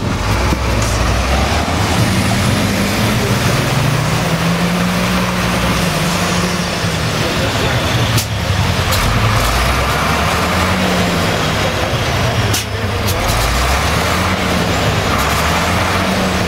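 A three-axle off-road truck's engine labouring through deep mud, its revs rising and falling in slow waves every couple of seconds. Two sharp knocks come about eight and twelve seconds in.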